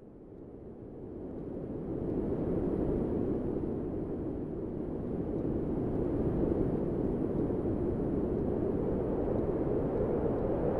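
A deep, steady rumbling noise without any clear pitch that swells up over the first two seconds and then holds.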